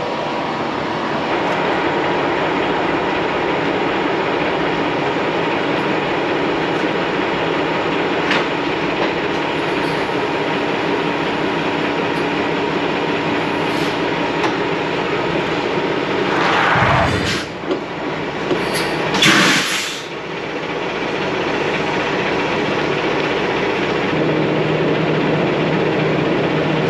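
Semi truck's diesel engine idling steadily, with two loud bursts of air hiss about two thirds of the way through, a second or two apart.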